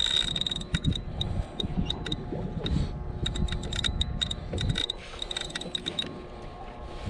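Penn spinning reel giving off irregular runs of sharp ticks as a hooked amberjack pulls line off against the drag, over a low rumble of wind and boat noise.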